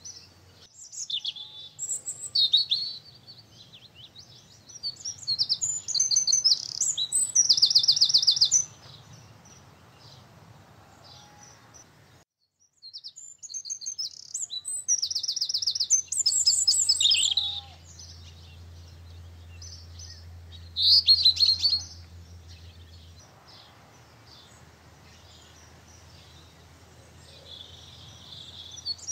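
Garden songbirds singing: several bursts of rapid, high trilling song and chirps, with quieter calls between them.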